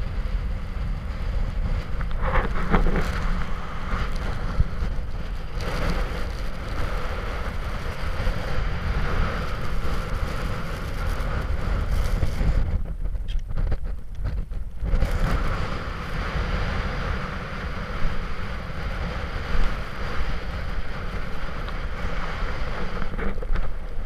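Gusty wind buffeting the camera's microphone: a loud, low rumble that rises and falls.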